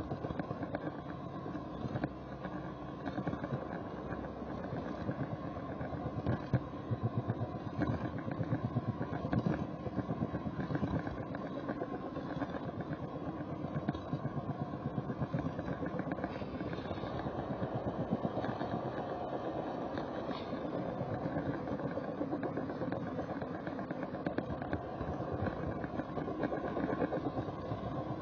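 Model railway camera train running along the track, heard from the camera riding on it: a steady rumble with dense, rapid clicking throughout.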